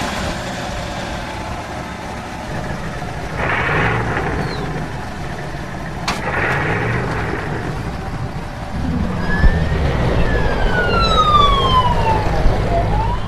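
Car engine running, then a police siren wailing from about nine seconds in: one slow rise and a long fall in pitch, with the next rise starting near the end.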